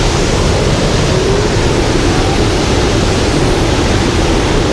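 A 63-foot waterfall pouring, a steady loud rush of falling water.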